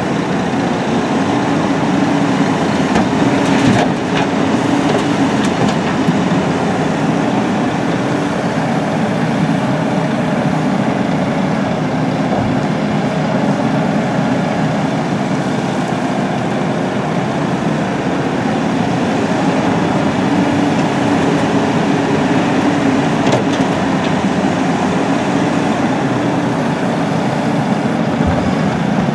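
Caterpillar 320CL tracked excavator's diesel engine running steadily under load as it works its bucket, with a few knocks and scrapes of the bucket against earth and rock.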